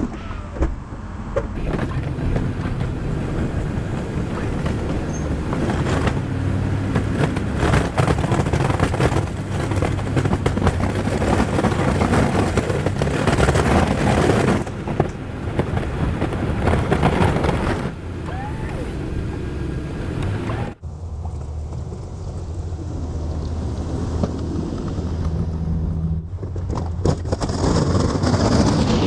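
GMC Sierra 2500 pickup engine running under load, with the heavy rushing, scraping noise of its Snow Dogg plow pushing snow. The noise cuts off abruptly about 21 seconds in, leaving mostly the engine's low hum, and builds again near the end.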